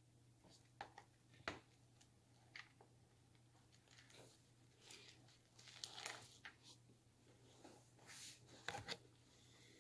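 Faint, irregular clicks and rustles over a steady low hum.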